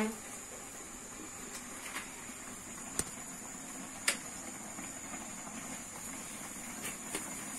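Steady low hum and hiss with a faint high whine, broken by a few light, sharp clicks about two, three and four seconds in.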